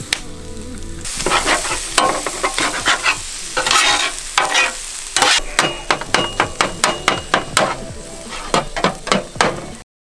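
Food frying and sizzling in a pan while a utensil scrapes and stirs it in quick, repeated strokes that come faster in the second half. The sound cuts off abruptly just before the end.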